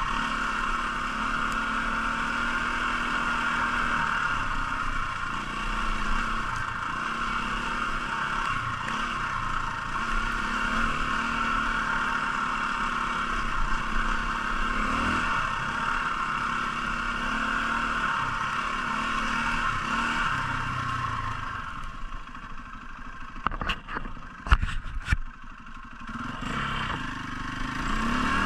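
Trail bike's single-cylinder four-stroke engine running at steady part throttle, its pitch wavering as the rider works the throttle. About 22 s in the throttle is shut, the engine falls back, and a few sharp knocks and clacks come from the bike on the rough ground. Near the end it picks up again.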